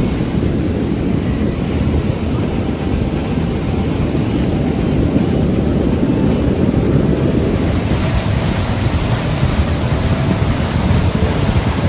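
Fast-flowing floodwater rushing steadily, a dense, loud, even wash of water noise.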